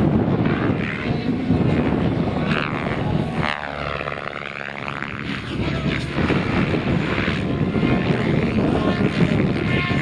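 Electric RC helicopter's rotor blades and motor during aerobatic flight, rising and falling in pitch as it swoops past, under heavy wind noise on the microphone.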